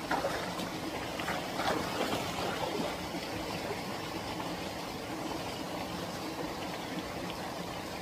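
Small waterfall pouring over a low weir into a stream pool, a steady rush of water, with light splashing in the first few seconds as a round mesh fish trap is pushed into the water beneath it.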